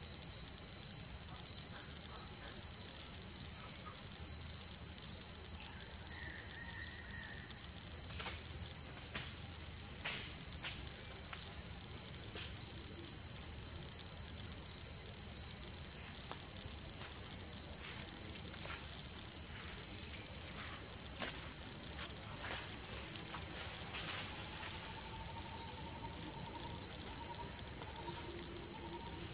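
A loud, steady, high-pitched insect chorus with no break.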